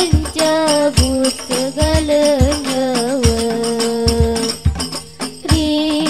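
Hadroh music: a girl's voice singing an ornamented devotional melody into a microphone over rebana frame drums beating a steady rhythm. Voice and drums drop out briefly about five seconds in, then come back together.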